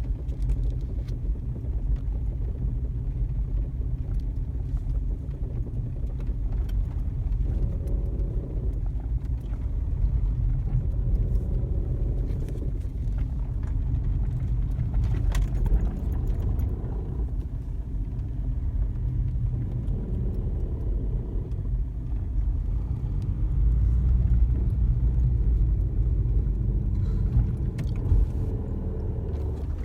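VW Golf 4's 1.9 TDI four-cylinder turbodiesel running at low revs under throttle, a steady low rumble with a droning note that swells and fades several times. This is the odd noise that comes with accelerating at low engine speed, which the owner also feels as vibration; the cause is not known.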